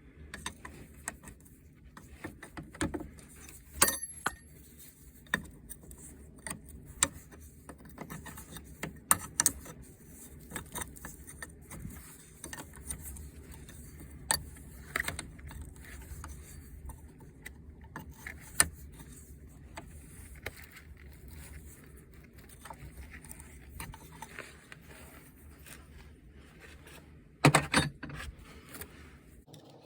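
Metal tool clinks and clicks of a hand wrench working a bolt loose, coming irregularly, with a louder cluster of knocks near the end.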